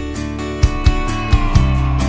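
Background music: guitar over a drum beat, with a note sliding down in pitch about a second in.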